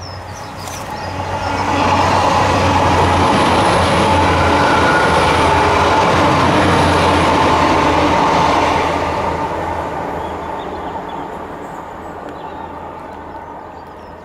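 A train passing along the railway line: it swells over the first two seconds, stays loud for about seven seconds, then fades away slowly over the last five.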